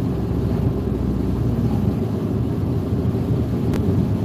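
Steady low rumble of a car driving, heard from inside the cabin, with one brief click near the end.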